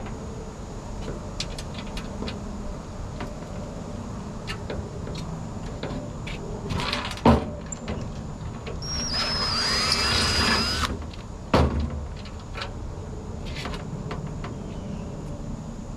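Scattered clanks and knocks of tools on metal, with a small power tool running for about two seconds in the middle, its pitch rising as it spins up.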